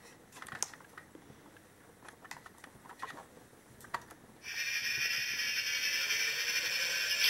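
Plastic toy parts clicking as the Thunderbird 3 toy's drill section is handled and opened. About four and a half seconds in, the toy's electronic drill sound effect starts through its small speaker: a loud, steady hissing whir with a faint slowly rising tone.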